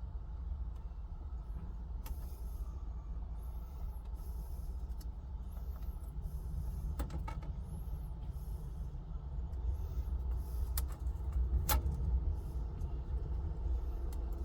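Pickup truck's engine idling, a steady low rumble heard inside the cab, with a few light clicks and taps from handling the glass screen protector against the display.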